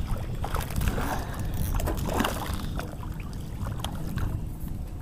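A small hooked smallmouth bass splashing and thrashing at the water's surface as it is reeled in and swung out of the water, in irregular bursts of splashing over a steady low wind rumble on the microphone.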